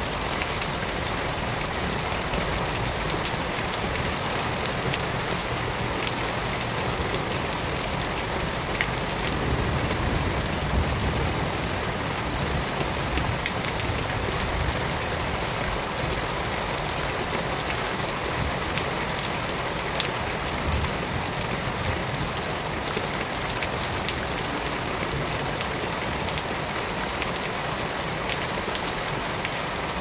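Shallow running water flowing and splashing over stones and leaf litter: a steady rushing hiss with many small splashes and drips.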